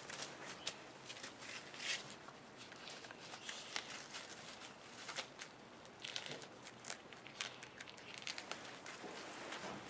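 A rabbit, and at the start a Cavalier King Charles Spaniel puppy, biting and chewing leafy vegetable greens: faint, irregular crisp crunches with rustling and tearing of the leaf.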